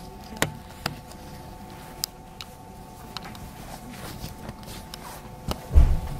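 Inside a JR 221-series electric train standing at a station platform: a steady low hum from the train with a few faint tones, scattered light clicks, and one heavy low thump near the end.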